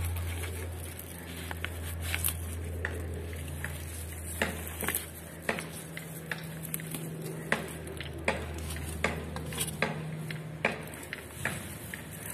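Sharp clicks of stems being snapped off a leafy green plant (bachhala koora) by hand during harvesting, coming about once a second from a few seconds in, over a low steady hum.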